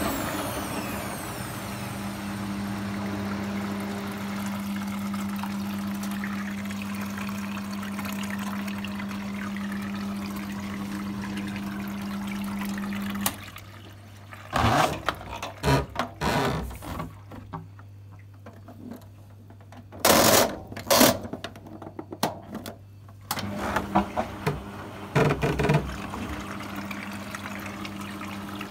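Arçelik 4120 S front-loading washing machine on its drum cleaning cycle: a steady low hum that cuts off about halfway, then water splashing and sloshing inside the drum in uneven bursts. The hum starts again a few seconds before the end.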